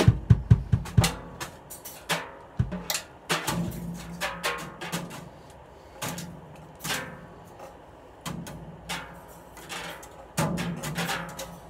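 Drums being played by hand and stick: a quick run of strokes with low kick-drum thumps in the first second, then scattered single hits that ring out, and a denser flurry of hits near the end.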